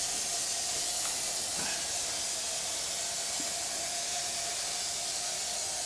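Aerosol can of Kilz Upshot stain-blocking primer spraying in a continuous hiss onto a water-stained ceiling, sealing the stain so it will not bleed through later paint.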